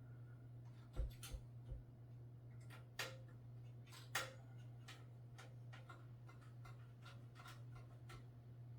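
Small scattered clicks and taps of a screwdriver driving screws that fasten a motherboard into a PC case, a few of them sharper, over a steady low hum.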